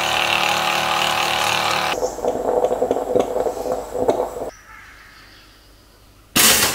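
Kitchen sounds: a steady whirring hum with several held tones, then a stovetop moka pot sputtering and gurgling in uneven pops and clicks, then a faint hiss, and a short loud burst of noise near the end.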